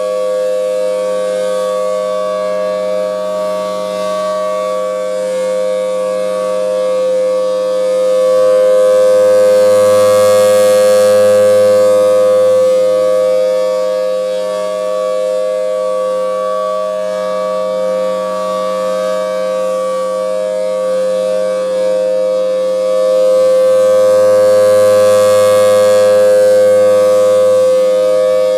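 Federal Signal Thunderbolt 1000T outdoor warning siren sounding a steady tone that holds its pitch. It swells louder twice, about 15 seconds apart, as the rotating siren head turns toward the listener.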